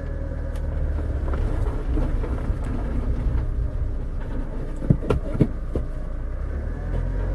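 Lowered VW Polo 9N driving slowly with a steady low rumble. About five seconds in there is a short run of knocks from under the car, a metallic banging the owner finds very ugly and strange. It was caused by a tree branch caught under the car knocking against the exhaust.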